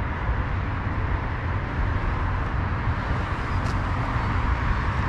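Steady outdoor city background noise: a low rumble with an even hiss, typical of distant road traffic.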